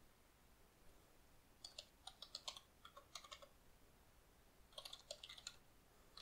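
Faint computer keyboard typing: two runs of quick keystrokes, the first starting about a second and a half in, the second shorter and near the end.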